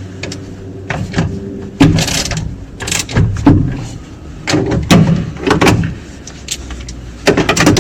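Irregular knocks and clanks of tools and parts being handled during work on the sprint car's pump mounting, a string of sharp hits with the loudest about two, three and five seconds in.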